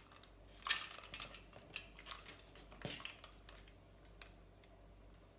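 Scattered light clicks and scraping handling noises from hand work on a bicycle fork, with a sharper click about three seconds in.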